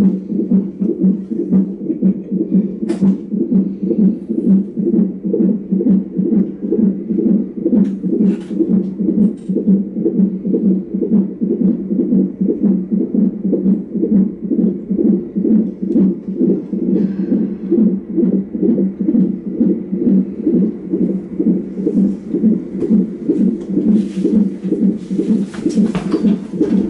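Fetal heart monitor's Doppler speaker playing the baby's heartbeat during labor: a fast, even, whooshing pulse. A brief rustle near the end.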